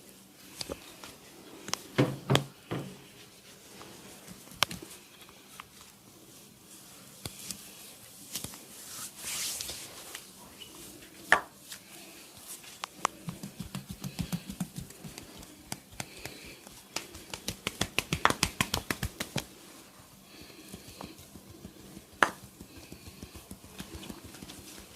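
Hands striking and working on a person's body during a barber's massage: scattered sharp slaps and claps, then a quick run of rhythmic slapping, about ten strikes a second for around two seconds, a little past the middle.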